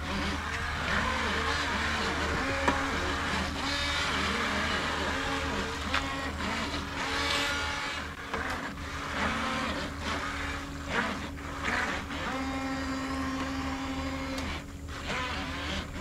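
Electric motors of two dual-motor RC racing boats running on the water, a steady whine that wavers in pitch as they turn.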